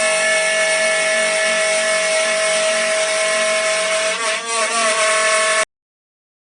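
Spindle of a homemade CNC router running and cutting, a steady whine over a hiss of cutting noise. About four seconds in the pitch wavers and the level dips briefly, and a second later the sound cuts off suddenly.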